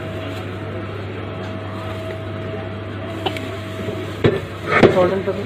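Steady background hum of shop equipment with a thin steady whine that stops about four seconds in, then a sharp knock.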